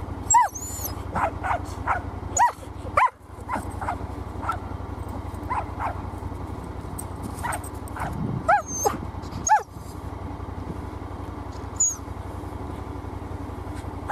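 Red heeler barking repeatedly at birds overhead: about a dozen short, high, sharp barks at uneven intervals. Under the barks runs the steady low hum of the tracked side-by-side's engine idling.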